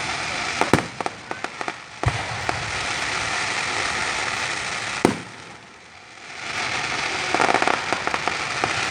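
Fireworks going off in a display: a dense crackling hiss with scattered sharp pops, two sharp bangs about 2 and 5 seconds in, a brief lull after the second, then the crackling swells again near the end.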